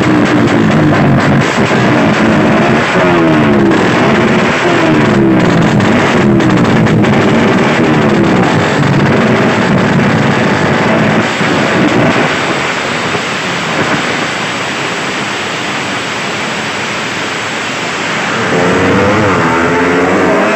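Underbone racing motorcycle engine revved in repeated short blips, about one a second, while held at the start line. After about twelve seconds it gets quieter, and near the end an engine revs up again with a rising pitch.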